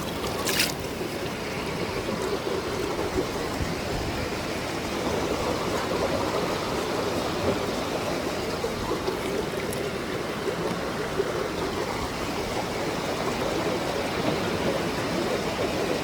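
Mountain stream flowing steadily, an even rushing of water.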